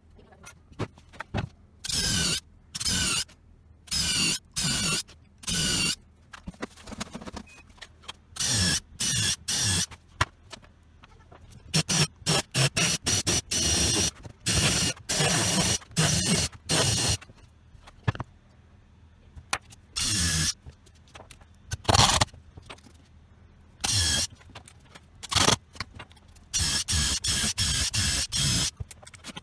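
Small electric power tool switched on and off in short bursts of about half a second, dozens of times, its whine shifting in pitch within each burst.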